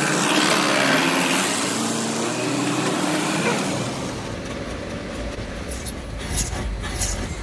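A small engine running with a wavering pitch. About three and a half seconds in it gives way to a lower, rougher machine rumble, with a few sharp clatters near the end.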